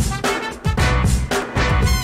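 Upbeat instrumental background music with a steady drum beat and bass.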